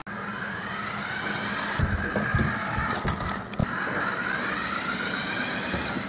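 Small electric motor of a toy RC buggy whining as it drives, its pitch rising and falling with speed. A few knocks and thumps come between about two and three and a half seconds in.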